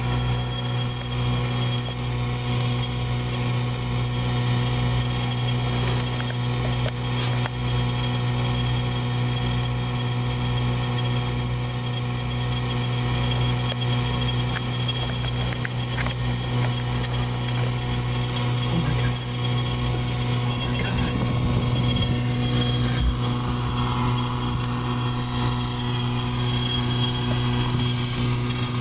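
Steady electrical mains hum: a loud, unchanging buzz with many evenly spaced overtones and a slow pulsing in the lowest part.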